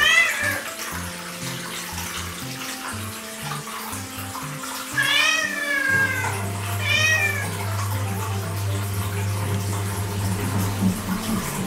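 Orange-and-white cat meowing three times: once right at the start and again about five and seven seconds in, each meow rising and then falling in pitch. This is the cat's habit of meowing whenever bath water is run.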